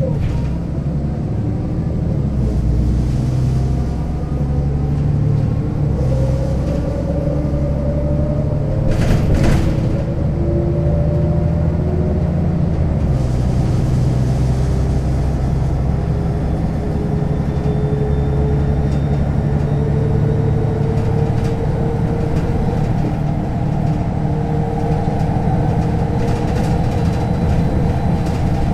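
MAN NL 283 city bus driving, with its diesel engine rumbling and its ZF automatic gearbox pulling through the gears. A whine climbs in pitch with speed and drops back at each gear change, several times over. There is one sharp knock about nine seconds in.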